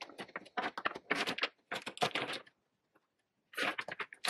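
Lipstick and lip-gloss tubes clicking and clattering as they are set down and pushed together on a wooden tabletop, in quick runs of taps with a pause of about a second before they start again.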